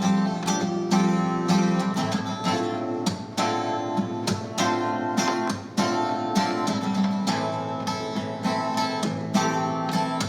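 Acoustic guitar strummed in a steady rhythm, chords ringing between strokes, in an instrumental passage of a song.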